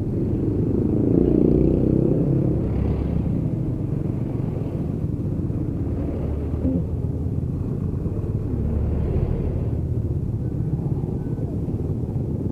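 Motorcycle being ridden in traffic: steady engine rumble mixed with wind and road noise on the camera's microphone, swelling a little louder a second or two in.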